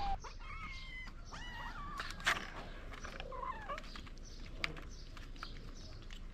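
Faint, high kitten meows, several short calls in the first few seconds, with scattered small clicks.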